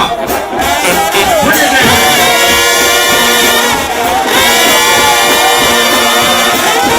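Trombone-led shout band playing a loud, driving hymn, with held notes and slides, over a congregation's crowd noise.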